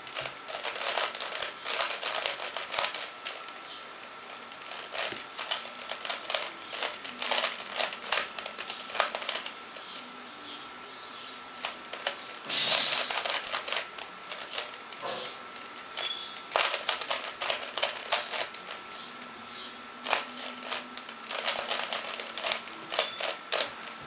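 Plastic 3x3 Rubik's cube turned by hand: quick runs of clicking layer turns in bursts of a second or few, broken by short pauses, with one denser, louder flurry about halfway through.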